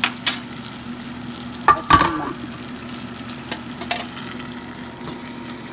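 Potato pieces frying in hot oil in a steel pot, with a steady sizzle. About two seconds in, a few loud ringing metal clanks of a utensil against the pot, with lighter clicks before and after.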